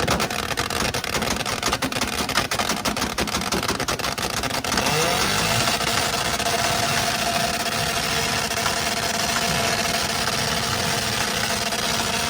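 Two car engines held on two-step launch-control rev limiters at the same time, their exhausts popping and banging rapidly. About five seconds in, the revs rise and settle into a steadier held note.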